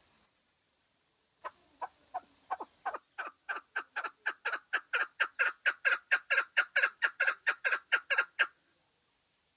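Chukar partridge calling: a long run of repeated sharp notes that starts slowly, speeds up to about four a second and grows louder, then stops abruptly.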